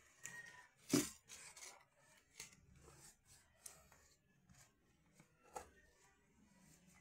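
A paintbrush rubbing and scraping over wooden door panels, with scattered small scrapes and clicks. A sharp knock comes about a second in, and a smaller one later on.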